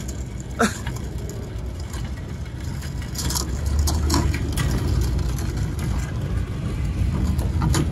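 Ford F-150 Raptor pickup's engine running at a low, steady crawl as the truck rolls on small carbon fiber wheels, getting louder after a few seconds as it pulls away. A few short scrapes and clicks come from the carbon fiber wheels on the rough pavement.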